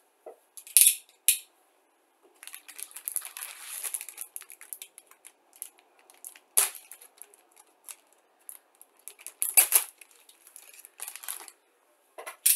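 Plastic sprue bag being slit open with a hobby knife: irregular crinkling and scraping of the plastic film with several sharp clicks. The speaker calls the knife surprisingly loud.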